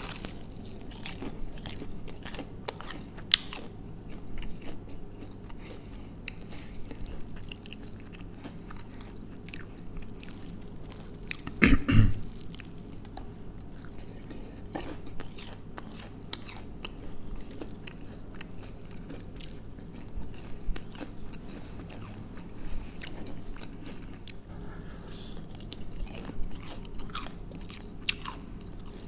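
A person biting into and chewing crispy breaded fried food, with scattered crunches. A louder knock-like burst comes about twelve seconds in.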